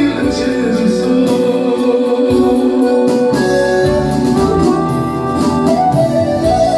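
Christian song performed live: a man sings through a microphone over an electronic keyboard playing sustained organ-like chords. Partway through his voice stops and the keyboard carries on alone.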